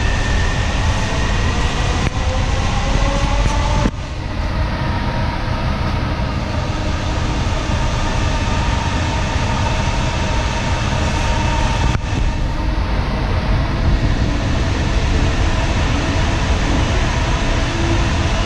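JFK AirTrain car running along its guideway: a steady low rumble with an electric motor whine that rises in pitch over the first few seconds as the train picks up speed, then holds steady at cruising speed.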